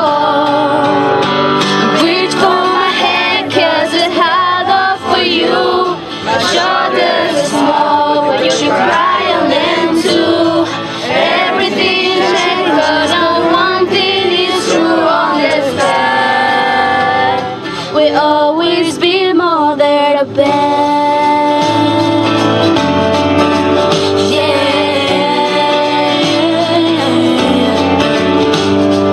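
Music: a song with singing voices.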